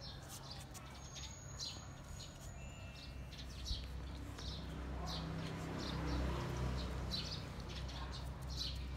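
Birds chirping, short high calls repeating about once a second, over a low hum that grows louder in the middle and then eases off.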